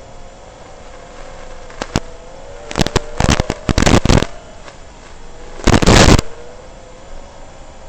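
FPV quadcopter's brushless motors whining with a wavering pitch, broken by several short, loud bursts of noise: a cluster about three to four seconds in and a louder one about six seconds in.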